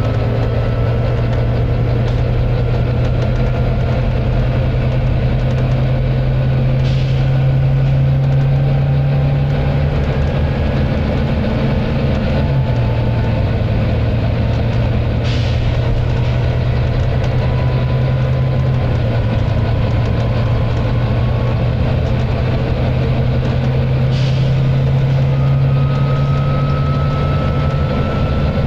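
Volvo B9TL double-decker bus's D9B six-cylinder diesel pulling hard, heard from on board, its low engine note dropping in pitch twice as the gearbox changes up, with a thin whine rising with speed. Three short air hisses come about eight seconds apart.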